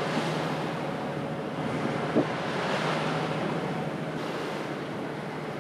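Bow wave rushing and sea spray along a sailboat's hull, with wind buffeting the microphone and the boat's engine humming steadily and faintly underneath while it motors into the wind.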